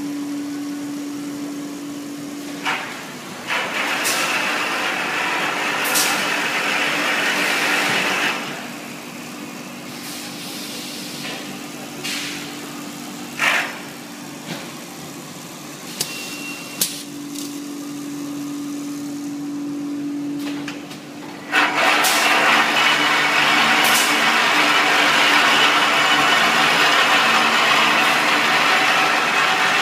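HSHZD-600C bag-in-box bag making machine running: a steady machine hum under a hiss of moving parts, with brief sharp hisses now and then. It grows louder about two-thirds of the way through.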